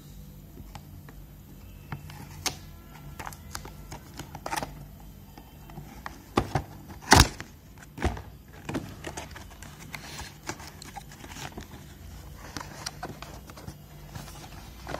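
Cardboard trimmer box being opened and handled: scattered taps, scrapes and rustles of card and packaging, with one sharp knock about seven seconds in, over a steady low hum.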